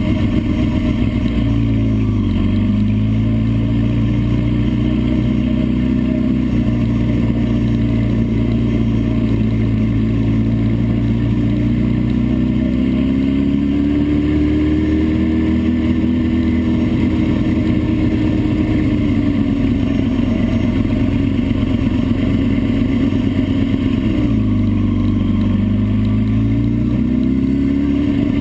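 Vehicle engine running hard at high revs, its pitch dropping as it slows about two seconds in and again near the end, and climbing in between as it accelerates, over steady wind and road noise.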